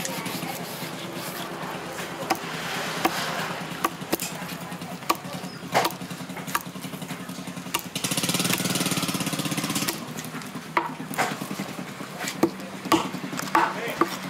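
Knife knocking and scraping on a wooden chopping block as a grouper is filleted and skinned, with sharp knocks scattered through. A small engine hums steadily underneath and runs louder for about two seconds just past the middle.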